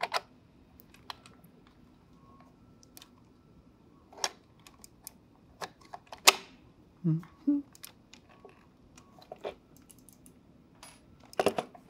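Scattered clicks and taps of 3D-printed plastic blaster parts being handled and pressed together, with one sharper click about six seconds in and a quick cluster of clicks near the end.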